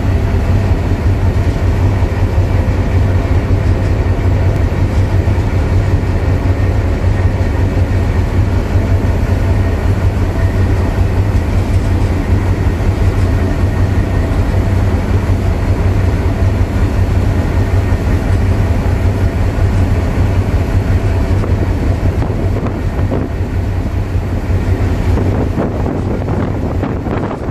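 Harbour tug's diesel engines running steadily under way: a loud, unbroken low drone with a steady hum, mixed with the churn of its wake.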